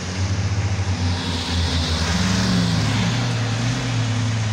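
A four-wheel-drive off-roader's engine running under load, revving up and easing back off about halfway through, with a hissing noise over it for a second or so in the middle.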